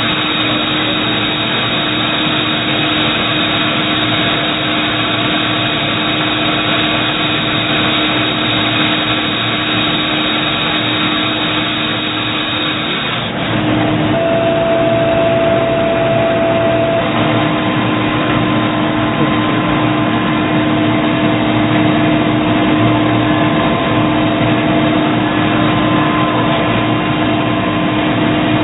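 Doosan Puma ST20G CNC lathe running: a steady machine hum with several held tones. About thirteen seconds in the sound shifts and gets slightly louder, and a higher whine comes in, strongest for a few seconds before easing.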